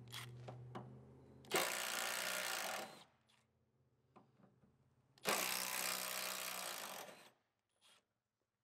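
Milwaukee M12 Fuel 1/4-inch hex impact driver running bolts into a liftgate hinge bracket in two bursts, the first about a second and a half long and the second about two seconds, with light clicks of handling before the first.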